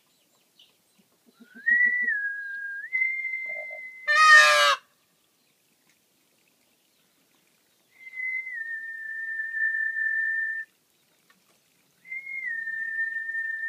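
A long, steady whistle that steps slightly in pitch, heard three times. About four seconds in comes a single short, loud, harsh call from an Indian peacock.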